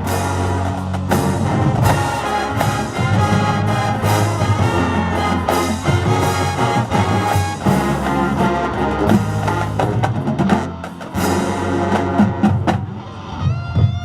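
High school marching band playing its competition show: brass chords over drums and percussion, thinning out briefly near the end.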